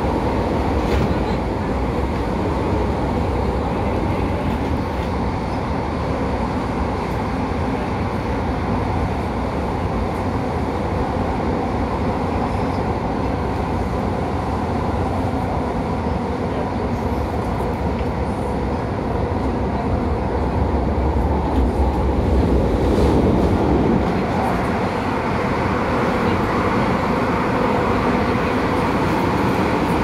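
Cabin noise of an MTR Tung Chung line A-train (Adtranz-CAF electric multiple unit) on the move: a steady rumble of wheels on rail and running gear. It grows louder for a few seconds a little past two-thirds of the way in.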